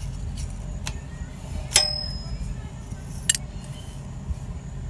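Two sharp metallic clinks about a second and a half apart, the first ringing briefly, over a steady low rumble.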